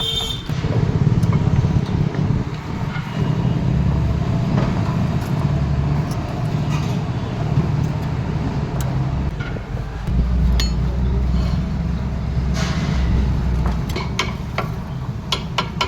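Metal brake pads and caliper hardware clinking now and then as they are handled, over a steady low rumble. The clicks come in a cluster in the last few seconds.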